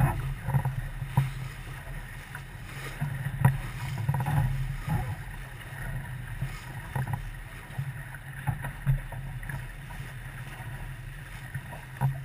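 Boat on the water: a steady low hum with a wash of water noise and scattered short knocks against the hull.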